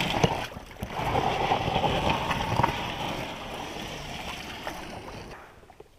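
Water sloshing and splashing around an inflatable pontoon boat's tubes as it is pushed off from the shore into shallow water. The sound dies away near the end.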